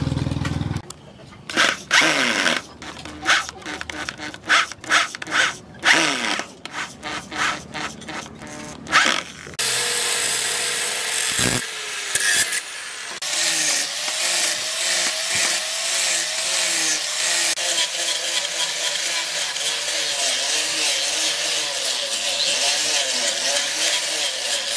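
A string of short irregular knocks and scrapes, then, about ten seconds in, an angle grinder with a sanding disc starts and runs steadily, sanding a wooden knife handle, its pitch wavering as it is pressed on the wood.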